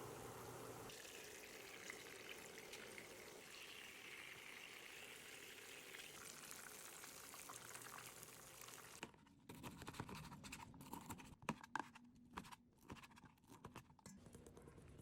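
Faint, steady sizzle of food cooking in a pan, shifting in tone about a second in and again about six seconds in. From about nine seconds in, it gives way to scattered clicks and knocks.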